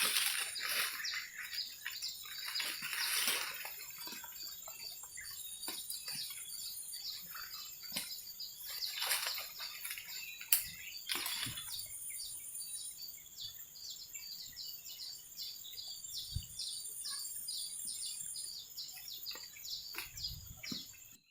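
Outdoor wildlife ambience: a steady high-pitched insect drone under a bird chirping over and over, about three short chirps a second. A few brief rushing noises come in the first half.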